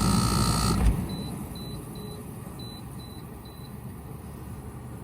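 Black+Decker portable heat pump running loudly, then cutting off with a clunk about a second in as it is shut down; six short high beeps follow from the unit over the next few seconds.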